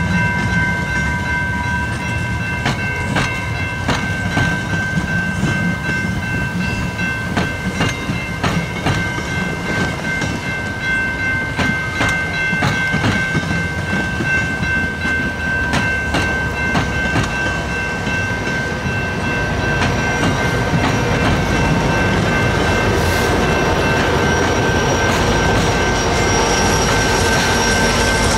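Bilevel commuter coaches roll past a level crossing, their wheels clicking steadily over the rail joints, while the crossing bell rings on a steady note. From about two-thirds of the way in, the diesel engine of the trailing GMD F59PH locomotive rises in a louder, deeper rumble as it draws up to the crossing.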